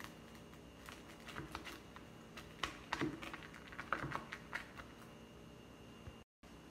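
Knife cutting through a crisp pan-fried parsley flatbread on a wooden cutting board: a quick run of small crackles and taps, densest in the middle, then the sound cuts out completely for a moment near the end.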